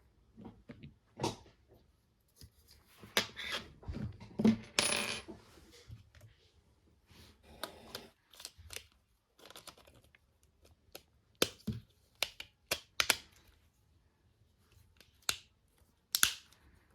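Irregular clicks, taps and light clatter of small hard plastic and metal parts being handled, with a brief scrape or squeak about five seconds in. The sharpest single clicks come in the last third.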